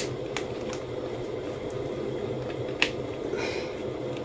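A few sharp metallic clicks from hinged metal binder rings being handled and snapped shut on a mini album, the loudest about three seconds in, with a brief rustle just after.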